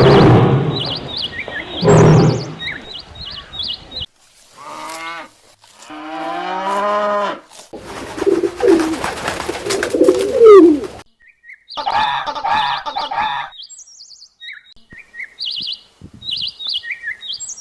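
A string of different animal calls cut one after another: short high bird chirps at the start and again near the end, with several pitched calls between them, one of them repeating rhythmically.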